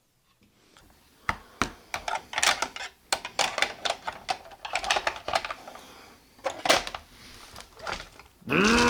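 Plastic toys being handled: an irregular run of small clicks and clatters. Just before the end a loud, steady pitched sound begins.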